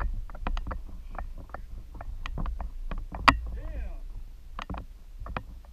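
Irregular light knocks and taps on a plastic fishing kayak, with a single sharp knock about three seconds in, over a steady low rumble of wind on the microphone.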